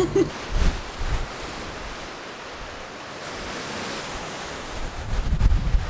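Strong wind gusting and buffeting the microphone over a steady rush of choppy lake water, with the gusts strongest about a second in and again near the end.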